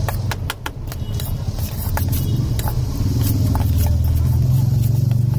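A metal spoon clinking and scraping against a steel bowl in irregular knocks as macaroni is mixed with masala, over a steady low rumble.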